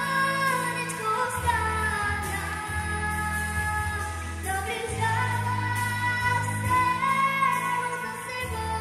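A young girl singing a pop-style song into a microphone over a recorded backing track, with held notes that slide between pitches over a steady bass line.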